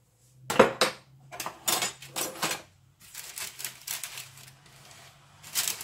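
Irregular short knocks, taps and rustles of kitchen items and paper being handled and shifted about on a worktop, in several short clusters.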